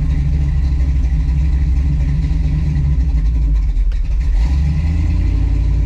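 Carbureted-style V8 in a 1967 Chevy Nova running at a steady idle on a newly fitted FiTech throttle-body fuel injection system, which is still self-learning its idle and air-fuel targets.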